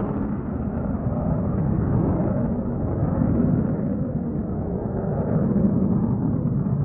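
Airplane engine noise: a steady, dull low rumble with no distinct tones, swelling and easing slightly.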